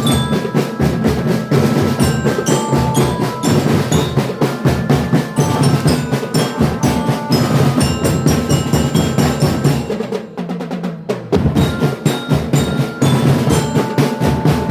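Marching drum band playing live: fast, dense snare and bass drum beats under a bell-like melody on mallet percussion, with a short lull in the drumming about ten seconds in.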